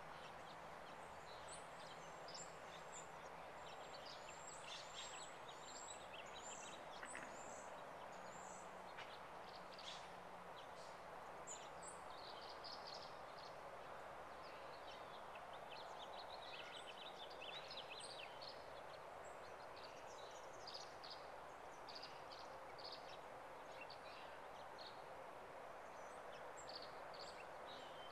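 Faint chorus of songbirds at dusk, many short chirps and song phrases from several birds overlapping, over a steady background hiss.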